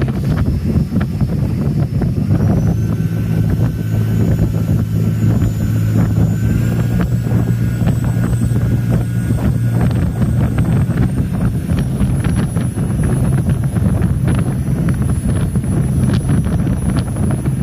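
Rigid inflatable boat's engine running at speed with a steady low drone, over water rushing past the hull and wind buffeting the microphone. A thin high whine climbs in pitch in a few steps.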